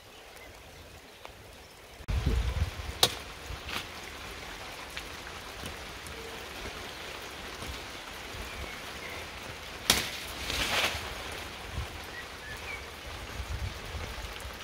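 A steady, rain-like hiss with a few sharp hits as a restored knife is swung into fig branches. The loudest hit comes about ten seconds in and is followed by a brief rustle of leaves.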